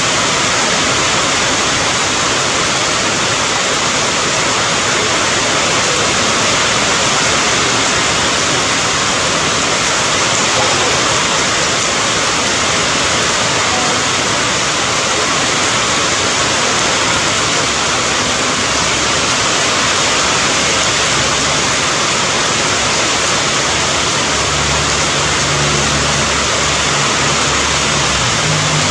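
Steady, even hiss of heavy rain with no single drops standing out. A low rumble joins it near the end.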